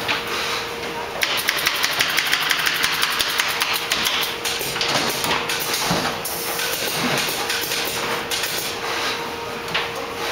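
Work at a canvas stretching machine: a rapid run of sharp clicks, about nine a second, lasting about three seconds, then scattered single knocks, over a steady machine hum.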